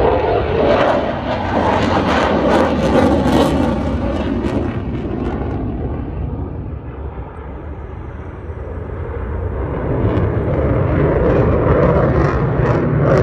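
Fighter jet's engine noise from a low display pass. It is loud at first, dies down about halfway through, then builds again near the end.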